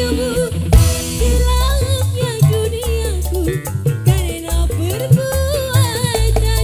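Music: a wavering melody line with vibrato over a deep, pulsing bass and percussion.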